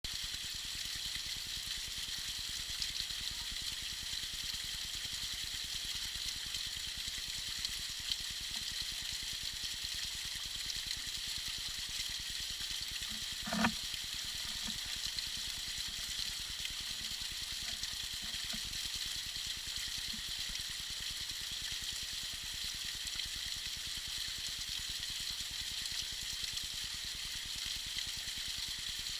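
Tiny icy waterfall trickling and splashing steadily, a fine hissing water sound, with one brief louder sound near the middle.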